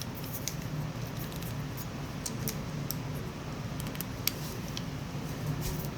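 Scattered light metallic clicks and scrapes of Rock Island 1911 pistol parts being handled and fitted back together, over a steady low hum.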